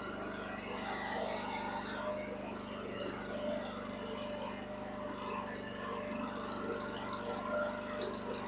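Huayee mini excavator's engine running steadily with an even, unchanging drone.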